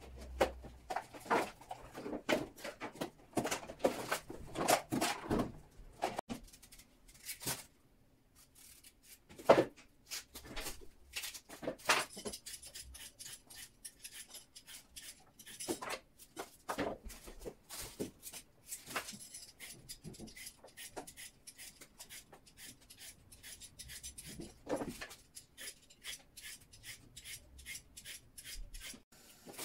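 Kitchen handling: containers and groceries knocked and set down. From about twelve seconds in, a steady run of short scraping strokes, a few a second, as a carrot is peeled by hand.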